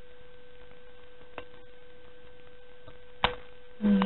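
Small scissors cutting paper: a faint click about a second and a half in and a sharp snip about three seconds in, over a steady background hum. A short vocal sound comes right at the end.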